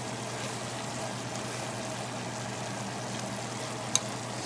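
Sliced red onions and minced garlic cooking in melted butter, sizzling and bubbling steadily, with one sharp click about four seconds in.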